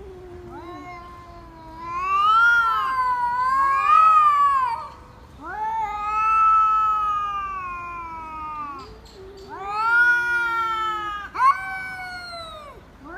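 Domestic cat yowling, a string of long drawn-out cries that rise and fall in pitch, ending with a short sharp cry. It is a cat's complaint at bath time.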